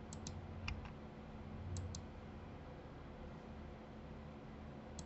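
Sharp clicks from computer mouse buttons and keys, about six in quick pairs within the first two seconds, over a faint low room hum.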